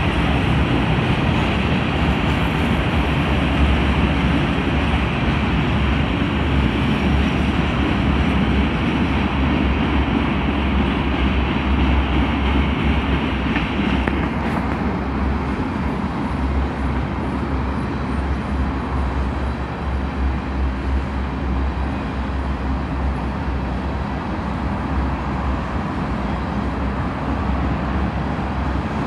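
Freight train cars rolling past close by: a steady rumble of steel wheels on rail. The higher hiss in the sound drops back about halfway through.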